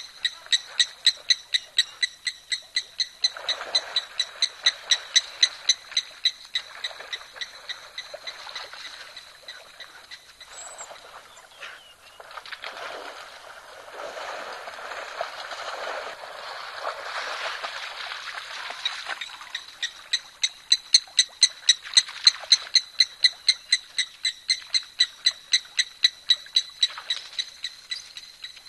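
An animal's high-pitched call repeated about three times a second, in two long runs, one at the start and one from about two-thirds through. Between them is a stretch of splashing water.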